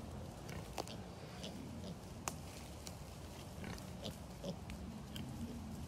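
Group of piglets grunting softly as they root and trot through dry leaf litter and brush, with scattered crackles and snaps of twigs underfoot.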